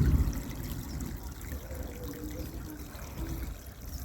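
Water trickling over a steady low rumble, with a few faint short held tones above it.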